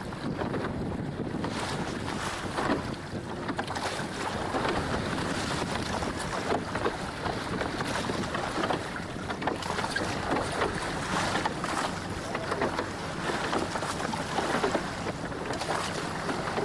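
Water splashing against a moving boat's hull, in many irregular little bursts, with wind buffeting the microphone.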